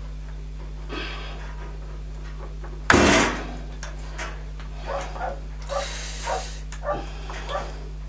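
Plastic wiring connectors and wires being handled and pulled inside a gas boiler's casing: one sharp clack about three seconds in, then rustling and a run of small clicks and knocks, over a steady electrical hum.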